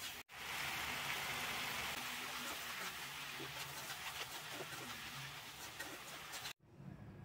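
Cabbage, potato, carrot and green chillies sizzling in oil in a pan while a spatula stirs them, with light scrapes and clicks of the spatula against the pan. The hiss cuts out briefly just after the start and again near the end.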